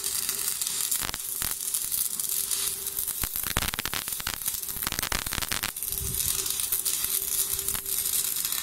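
Stick (MMA) welding arc crackling and sizzling steadily as a fillet weld is run on 4 mm flat steel with a 2.4 mm electrode at 130 A from a Stahlwerk AC/DC 200 Puls inverter welder. A faint steady hum sits underneath.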